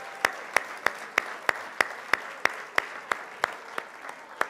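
A man clapping steadily, about three sharp claps a second close to the microphone, over the general applause of an audience.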